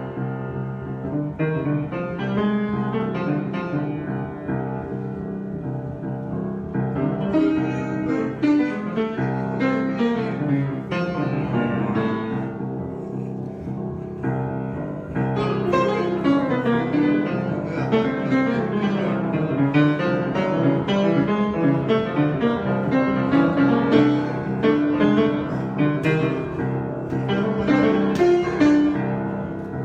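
Solo piano improvisation: many notes and chords played continuously, growing busier about seven seconds in, thinning briefly around the middle, then busy again for the rest.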